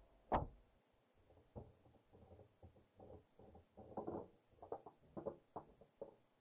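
A sharp knock inside a parked car's cabin, then a scatter of softer irregular knocks and clicks, heaviest near the end.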